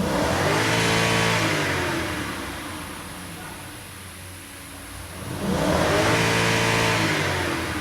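Lexus LS460's 4.6-litre V8 revved twice from idle, each rev rising quickly, holding for about a second and falling back, the second starting about five seconds in. The engine has a stored P0300 random multiple-cylinder misfire code and is being revved while its misfire counter is watched.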